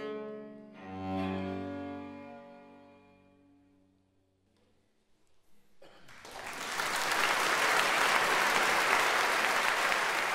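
A solo cello plays a last low bowed note that rings out and dies away. After a short hush, an audience's applause swells up and goes on steadily, louder than the cello.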